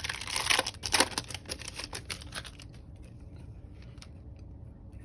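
Bowman Mojo trading-card pack and its cards being handled: a quick run of crinkles and clicks of the wrapper and cards for about two and a half seconds, then only faint, scattered ticks.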